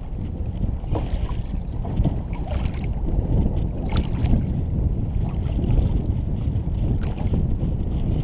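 Strong wind buffeting the microphone in a steady low rumble, with choppy lake water lapping against the aluminum jon boat's hull in scattered small splashes and knocks.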